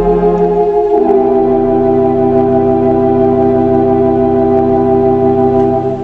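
Theatre organ playing the closing chords of a piece: a held chord gives way about a second in to a new, fuller chord with a deeper bass note, which is sustained and begins to die away at the very end.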